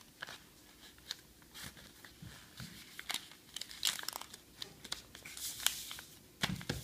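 Paper rustling and crinkling in short irregular crackles as a sheet is folded and creased into an origami bird.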